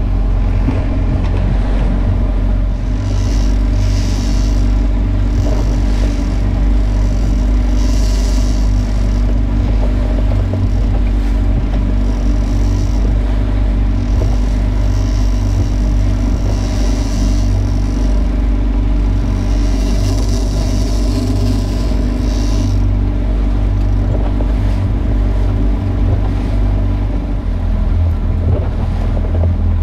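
Outboard motor running steadily, a constant low hum, with hissing surges every few seconds as the boat moves over the water.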